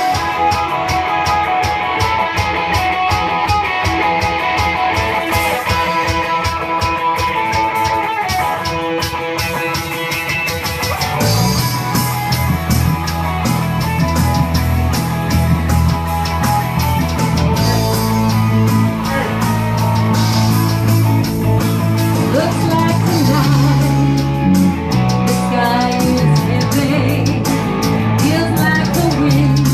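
Rock band playing live: electric guitar notes over a steady rhythmic pulse, with bass guitar and a fuller band sound coming in about eleven seconds in.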